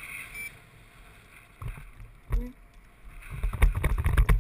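Wind buffeting the camera's microphone during a tandem paraglider's low landing approach. It is fairly quiet at first, then a low rumble builds up strongly in the last second or so. A short voice sound about two seconds in.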